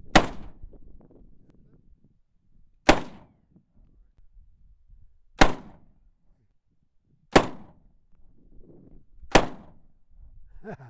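Five rifle shots from a scoped Ruger Mini-14 semi-automatic rifle, fired one at a time about two to three seconds apart, each a sharp crack with a short echo tail.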